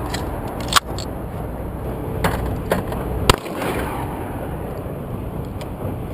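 Shotgun reports at a trap range: four sharp shots, the loudest about a second in and just past the middle, with two fainter ones between, over a steady background rumble.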